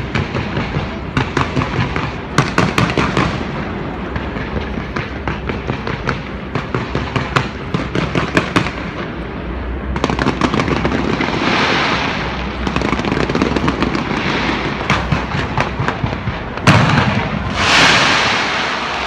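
Fireworks show: a dense run of rapid pops and bangs, then crackling showers, with one loud burst about seventeen seconds in followed by a crackling hiss.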